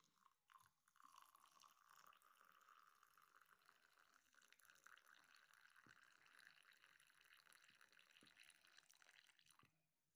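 Boiling water poured from a kettle into a glass mug, a faint steady splashing that starts about a second in and stops shortly before the end.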